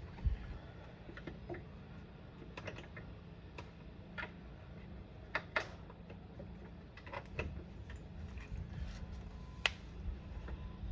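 Irregular light clicks and taps of small metal parts being handled: nuts and bolts of a headlight motor mount knocking as they are fitted by hand. The clicks fall singly at uneven intervals, over a steady low hum.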